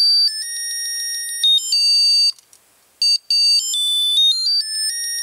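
Whadda MadLab Junior Theremin kit's piezo speaker playing stepped electronic tones set off by a hand moving near its antenna. The pitch climbs note by note, almost a chromatic scale, breaks off briefly in the middle, then climbs in steps again.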